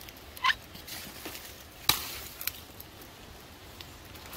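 Someone moving through dry leaf litter and fallen palm fronds: a brief squeak about half a second in, a sharp snap about two seconds in, and a few lighter crackles.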